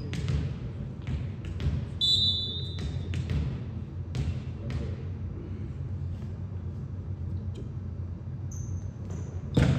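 A volleyball being hit and bounced on an indoor court: a string of sharp thumps, each with the hall's echo, over a steady low hum. A short high squeak comes about two seconds in.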